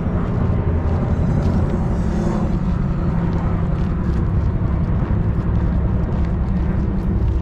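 Steady low engine drone with a faint even hum, unbroken throughout.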